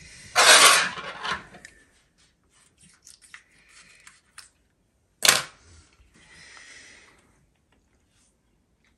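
Paper towel rustling and crumpling in the hands, with small handling ticks, and one sharp knock about five seconds in.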